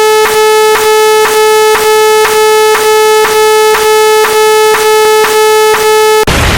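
Synthesized electronic sound effect: a loud, steady buzzing tone at one pitch, broken by a short click about twice a second.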